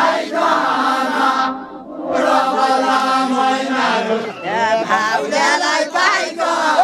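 Group of men singing a Deuda folk song together, many voices holding long, wavering notes, with a brief breath-break about a second and a half in before the singing picks up again.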